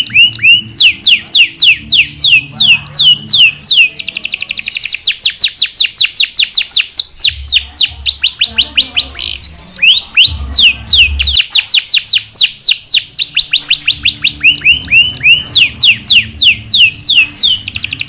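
Domestic canary singing a long, unbroken song of quick falling notes, several a second. The notes break into fast rolling trills about four seconds in and again near the end.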